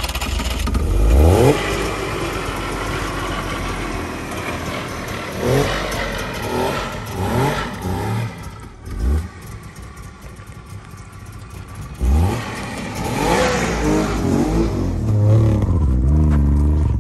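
The DKW 1000 SP's three-cylinder two-stroke engine is revved in a series of short throttle blips, each a quick rise in pitch. Near the end comes a longer, louder spell of engine running.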